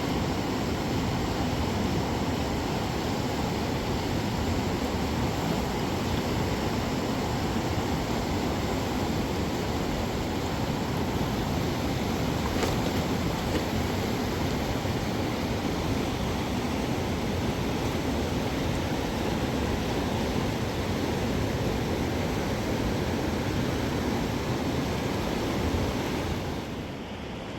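Steady rush of river water flowing, an even noise without pauses; it drops sharply in level about a second before the end.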